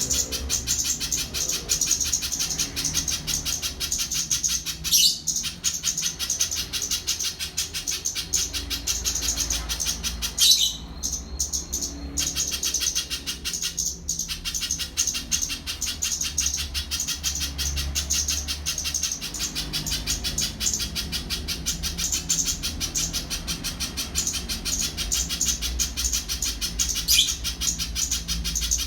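A spiderhunter (pijantung pisang) calling in a fast, unbroken high-pitched chatter of many notes a second. A few short louder sounds break in around 5, 11, 14 and 27 seconds in.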